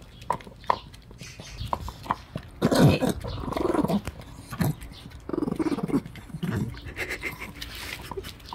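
A dog growling in two bouts, about three and about five and a half seconds in, between crisp clicking of a dog chewing boiled green peas from a bowl.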